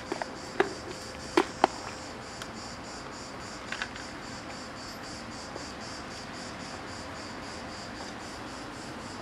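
Steady insect chirring, pulsing about four times a second. In the first two seconds a few sharp clicks from the dry kibble and plastic food tub as a cat feeds.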